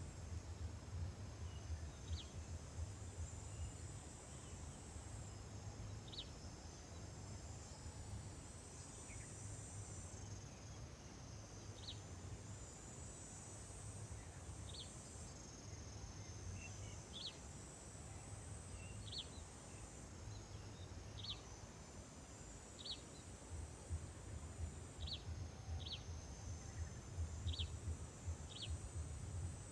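Insect chorus: a steady high buzzing that swells and shifts in waves every few seconds, with short high chirps scattered throughout. Under it is a low rumble that grows louder near the end.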